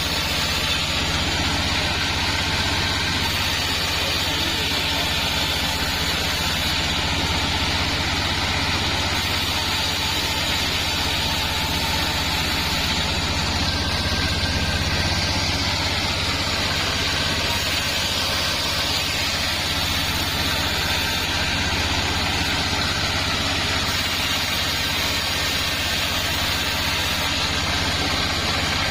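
Circular sawmill running steadily, a constant low machine hum with a hiss over it and no breaks.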